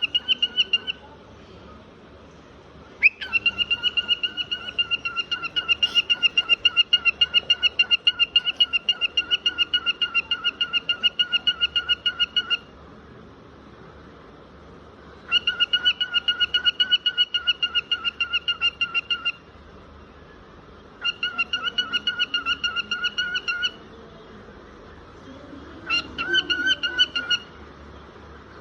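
Cockatiel calling in bouts of rapid, evenly repeated notes held on one steady pitch, like a beeping trill: a short burst at the start, a long run of about nine seconds, then three shorter runs with pauses between.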